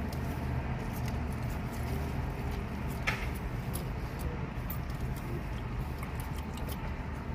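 Steady low hum in a car cabin, with faint rustles and a few small clicks, and one brief higher sound about three seconds in.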